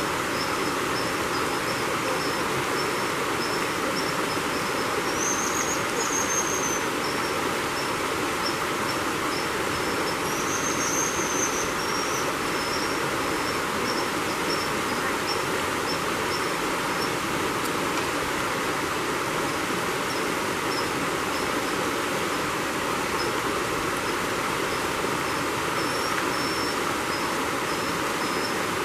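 Fast mountain creek rushing and splashing over rocks, a steady even noise. Over it runs a string of short, thin, high chirps, with two longer, slightly rising high calls about 5 and 10 seconds in.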